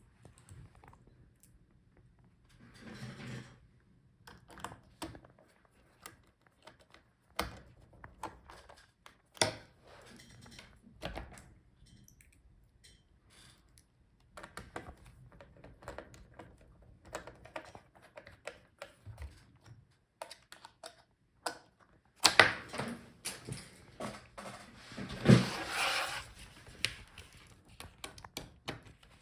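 Scattered light clicks, taps and knocks of small plastic and metal laptop parts being handled as the screen hinges are screwed back onto the display back cover, with a louder stretch of scraping and knocking about three-quarters of the way through.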